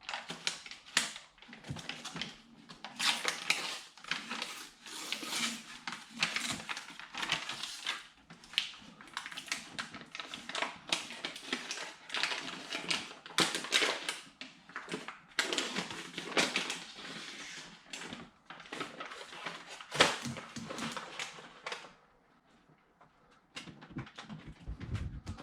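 Sound-deadening mat being handled and pressed onto a plastic car door trim panel: irregular crinkling, rustling and scraping, with a sharp click about twenty seconds in. It goes nearly quiet near the end.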